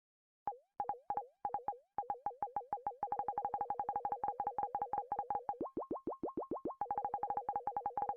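An electronic keyboard's synthesized sound effect: short pitched blips, each dropping quickly in pitch. They are repeated sparsely at first, then rapidly at about eight a second. In the middle, a run of blips glides upward in pitch instead.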